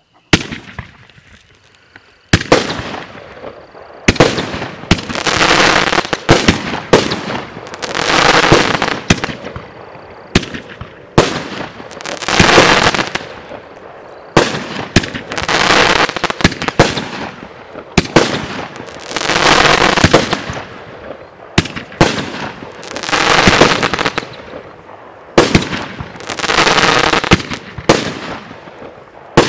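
A 500-gram, 16-shot firework cake firing shot after shot, about one every two seconds. Each shot is a sharp launch pop followed by the shell bursting into a long silver crackle that fades away.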